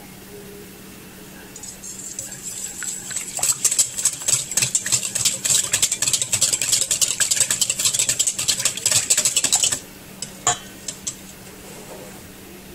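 Wire balloon whisk beating milk and egg in a stainless steel bowl: rapid clattering of the wires against the metal, starting a couple of seconds in and stopping abruptly near the end, followed by a few light taps of the whisk on the bowl.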